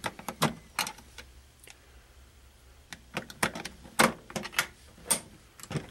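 Irregular plastic clicks and taps from hands working the battery compartment cover on the underside of a 2006 Hess toy truck, snapping the cover in place.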